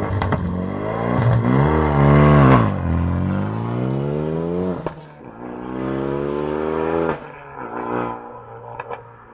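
Renault Mégane 3 RS 2.0-litre turbo four-cylinder, running a decat full-tube exhaust, revved several times. The engine note climbs and drops off sharply, with loud cracks from the exhaust as the throttle closes.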